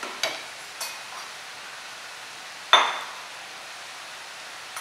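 Steel perforated skimmer clinking against a wok: two light taps in the first second and one louder ringing clink near the middle. Underneath is the steady sizzle of cassava bhajia deep-frying in hot oil.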